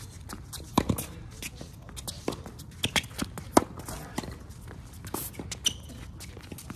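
Tennis ball being struck by rackets and bouncing during a rally, a series of sharp pops at irregular spacing, with players' footsteps shuffling on the court and a couple of short high squeaks near the end.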